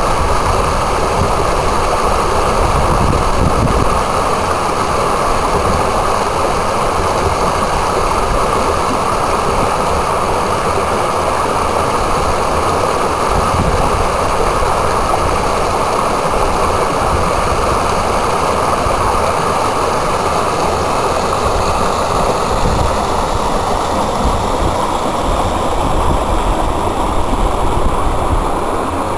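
Rainwater runoff rushing over a small rocky cascade and weir in a swollen stream: a loud, steady rush of water.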